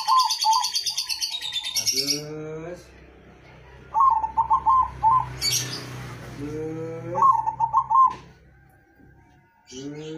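Caged zebra dove (perkutut) cooing: each phrase is a rising run of low notes followed by a quick burst of clipped higher notes, repeated about every four seconds. A high, fast chittering overlaps the first second.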